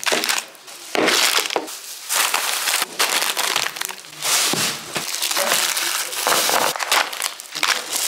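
Plastic grocery bags and food packaging rustling and crinkling in irregular bursts as shopping is unpacked and set down on a counter.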